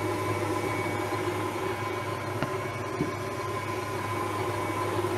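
KitchenAid Artisan tilt-head stand mixer running steadily with a flex-edge beater, beating chocolate buttercream frosting in its steel bowl: a constant motor hum and whir. Two faint clicks come near the middle.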